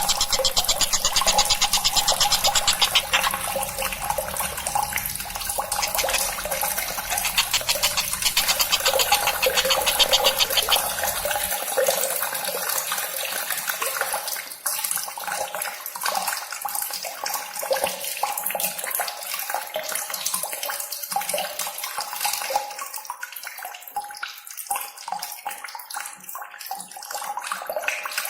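Steady rush of running water with a fast, dense rattle over it during the first ten seconds or so; the rattle then eases off.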